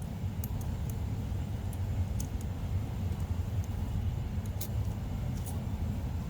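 A steady low rumble with a few faint, scattered light clicks, like small metal parts of an electric fan motor being handled.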